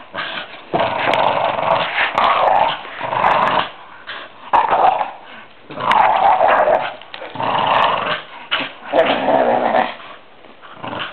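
Staffordshire bull terrier growling in play while tugging on a ring toy, in a run of growls about a second long each with short breaks between.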